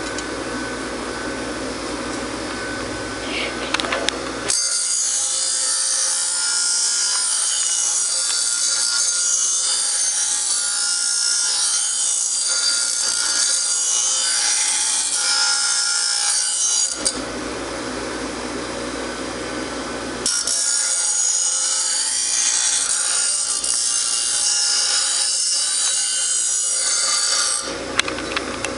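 Bench grinder running with a steady hum, and twice a lawnmower blade is pressed to the grinding wheel: a long, rough, hissing grind from about four seconds in to about seventeen seconds, then again from about twenty seconds to near the end.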